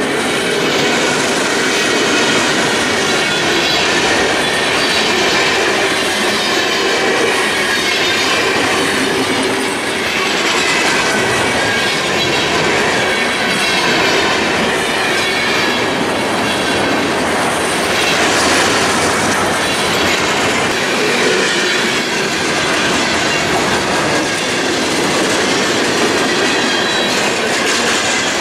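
Cars of a long mixed freight train rolling steadily past: the steady rumble and clatter of steel wheels on the rails, with thin high squealing tones running through it.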